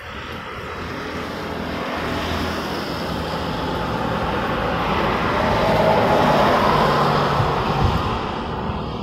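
Vehicles passing on a rain-wet road: tyre hiss and engine noise that swell to a peak about six seconds in, then fade.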